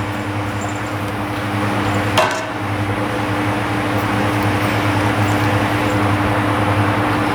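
Steady mechanical hum over a hiss, with a single sharp knock about two seconds in.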